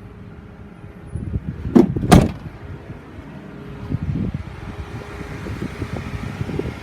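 Pickup truck door being shut: two sharp knocks close together about two seconds in, then irregular shuffling and light knocking.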